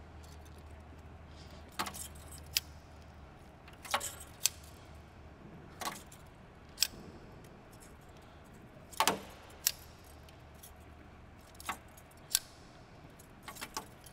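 Scattered light metallic clicks and clinks of steel safety wire and pliers being handled and twisted, over a faint low steady hum.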